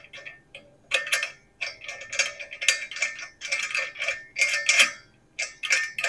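A gas lantern's brass fitting being screwed by hand onto the valve of an LPG cylinder: irregular small metallic clicks and scrapes of the threads and metal parts, in short spells with brief pauses, as the joint is tightened against gas leaks.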